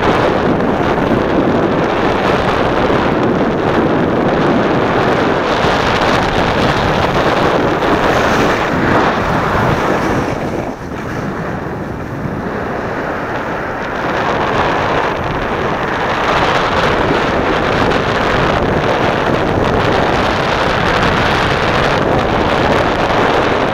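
Wind rushing over the microphone of a skier's camera during a downhill run, a loud steady rush that eases off for a few seconds in the middle as the skier slows.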